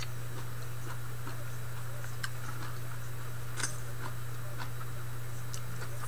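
A steady low hum, with a few faint, sharp clicks and ticks scattered over it.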